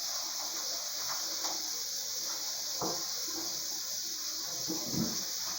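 Shower spray running steadily while a dog is bathed, with a few soft knocks and splashes; the loudest comes about five seconds in.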